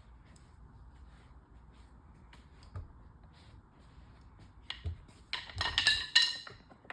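Faint handling clicks, then near the end about a second of rapid knocks and clinks with a metallic ring as a wooden playpen section is worked down onto its dowels a little at a time.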